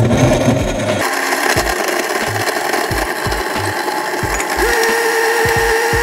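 Bravomix professional blender running its 40-second program, the motor spinning at high speed as the blade crushes ice and frozen fruit pulp into juice. The sound changes about a second in, and a higher steady whine joins about four and a half seconds in.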